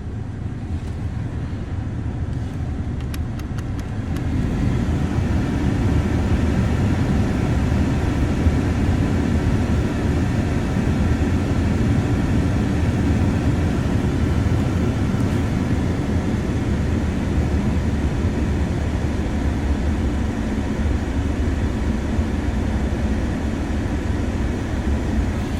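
Ford Mondeo IV's 2.3-litre four-cylinder petrol engine running under load from the air conditioning and headlights, brought up to higher revs over the first few seconds and then held steady. It carries a rattle that comes on when the AC engages, which the owner is sure is not the AC compressor.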